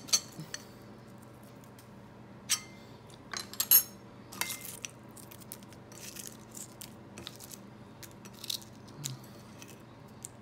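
Scattered light clicks and clinks of a utensil against a plate of fried peanuts, most of them between about two and five seconds in, over a faint steady hum.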